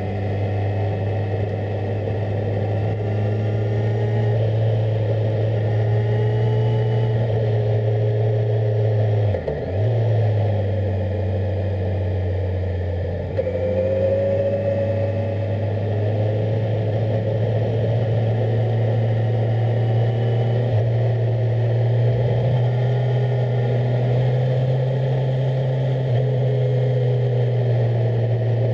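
Onboard sound of a Kawasaki Z1000SX's inline-four engine under way at steady revs. The engine note dips briefly about nine seconds in and runs lower for a few seconds. At about thirteen seconds the throttle opens, the engine grows louder, and the revs climb slowly through the rest of the ride.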